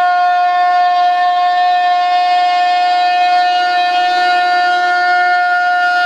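Handheld rotary tool running at a steady high-pitched whine as it works the skin of a composite wing.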